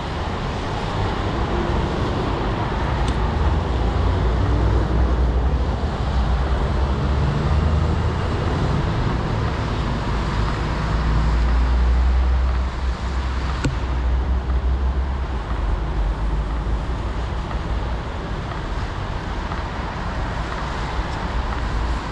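City road traffic on a rain-wet street: a steady rushing noise with a heavy low rumble, strongest through the first half. A single sharp click sounds about two-thirds of the way through.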